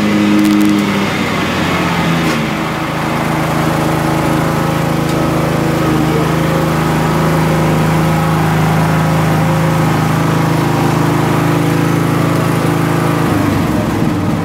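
Craftsman LT1000 lawn tractor engine running, sounding healthy. About a second or two in it slows to a lower steady speed and holds there, then slows again, a little rougher, near the end.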